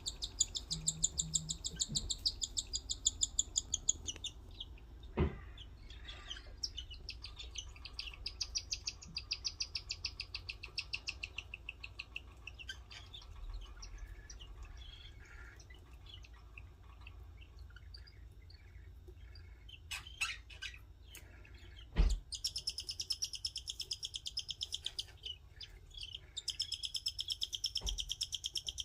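Cockatiel chicks begging: rapid, rhythmic high-pitched chirping calls, loudest at the start and again in the last third. A couple of sharp knocks, the loudest about two-thirds of the way through.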